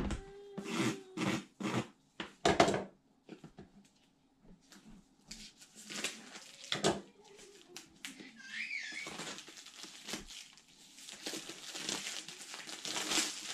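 A cardboard box being opened by hand: scattered crinkling, scraping and light knocks as its seal is picked at. In the second half a tool runs along the box, giving a longer stretch of scraping and rustling.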